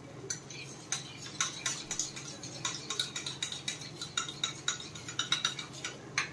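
A spoon clinking against a cooking dish in quick, irregular taps, about three or four a second, as food is stirred or spooned.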